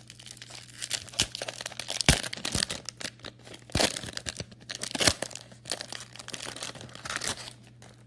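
Wrapper of a 1998/99 Topps basketball jumbo card pack crinkling and tearing as it is opened, a run of crackles with a few sharper snaps about two, four and five seconds in.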